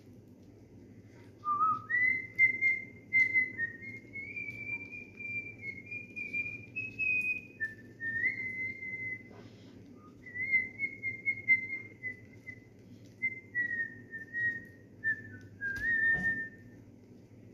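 A person whistling a slow, wandering tune with the lips, one clear note at a time with small slides between notes, starting about a second and a half in. A few faint clicks and taps sound underneath.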